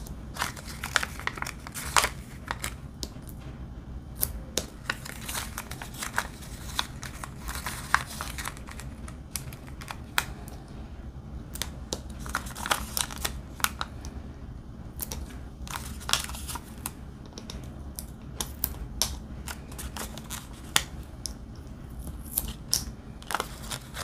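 Irregular light clicks and paper rustling from handling small plastic storage jars in a case and peeling sticker labels off a sheet onto their lids, over a steady low hum.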